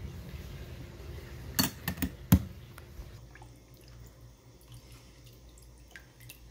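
A wire smoker rack clinking against the metal rails of a Char-Broil electric smoker as it is slid into the bottom slot: four sharp metallic clicks a couple of seconds in, the last the loudest, then a couple of faint ticks near the end.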